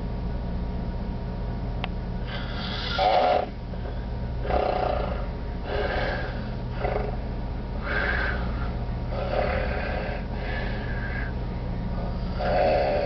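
A man snoring heavily in his sleep, about eight rough, ragged breaths in ten seconds, sounding like gasping for breath. The loudest come about three seconds in and near the end. A steady low hum runs underneath.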